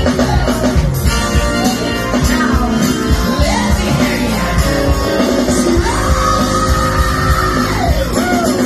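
Loud live band music with a singer over a steady beat; the singer holds a long note about six seconds in.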